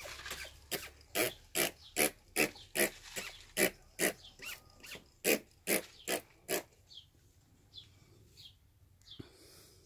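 A rapid run of about fifteen short, loud animal calls, two or three a second, stopping about two-thirds of the way through.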